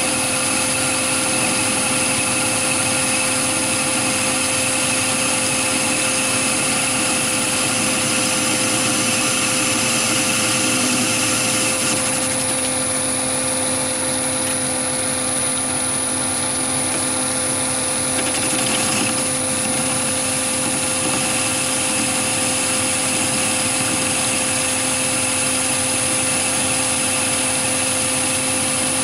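Chinese mini lathe running steadily with a high-pitched motor whine while a carbide tool, fed by a motor-driven compound slide, turns a long taper on mild steel.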